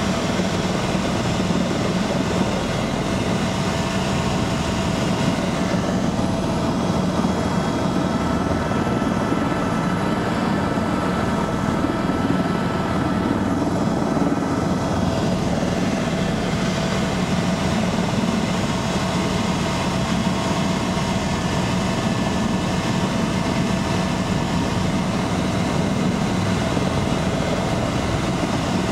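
Helicopter's turbine engine and rotor running steadily, a constant whine over a low hum.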